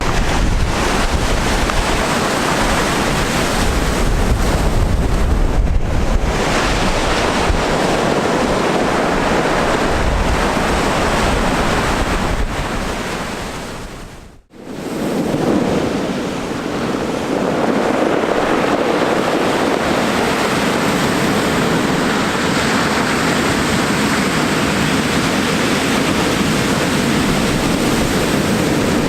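Rough sea surf breaking and rushing on the shore in a strong, gusty wind. Wind buffets the microphone with a heavy rumble, strongest in the first half. About halfway through the sound fades out briefly and comes back.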